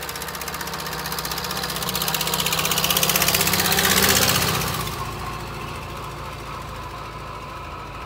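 1928 Ford Model A's flathead four-cylinder engine running as the car drives past, with rapid, even firing pulses. It grows louder to a peak about four seconds in, then fades as the car moves away.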